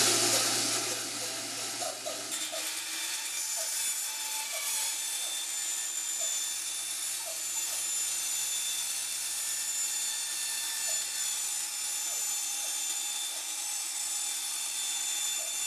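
Bandsaw running, its blade cutting through a thin sheet-metal panel from an old computer case: a steady hiss with a thin high whine over a low motor hum, louder in the first second or two.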